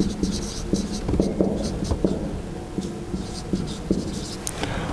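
Marker pen writing on a whiteboard: a run of short scratchy strokes as words are written.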